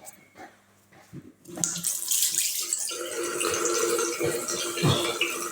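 Water running steadily, starting about a second and a half in, after a few faint clicks.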